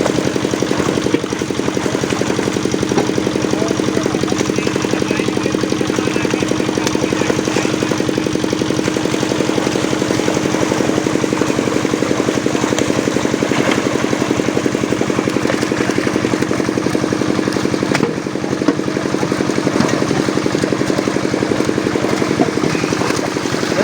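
Boat engine running steadily at a constant speed.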